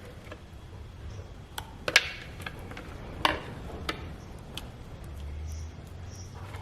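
Spoon or spatula knocking and scraping against a blender jar as thick ground urad dal batter is scooped out: scattered, irregular light clicks and knocks, the loudest about two and three seconds in, over a low steady hum.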